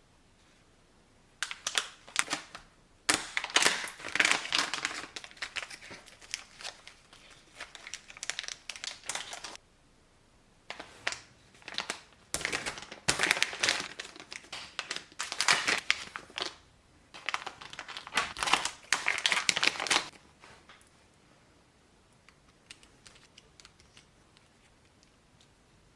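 Plastic packaging crinkling as it is handled and unwrapped, in several bursts of close crackling, ending about twenty seconds in.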